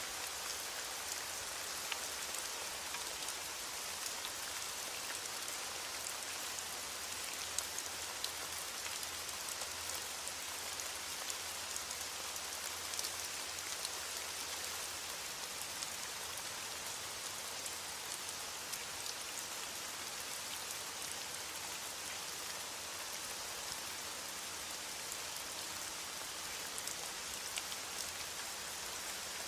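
Steady rain falling, with scattered single drops ticking out sharper and louder now and then.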